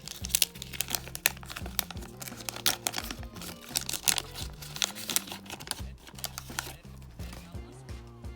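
Wrapper of a 1988 Fleer Star Stickers baseball card pack being torn open and crinkled in the hands: dense, irregular crackling for about six seconds, then fewer, softer rustles. Background music with a low bass line plays underneath.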